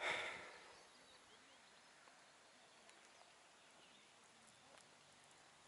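A brief rush of noise right at the start that quickly fades, then near silence: faint open-air ambience with a few small distant bird chirps.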